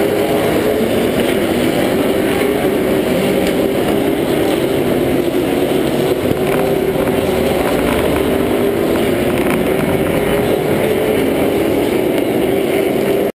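Race car engine idling steadily, heard from a camera mounted on the car.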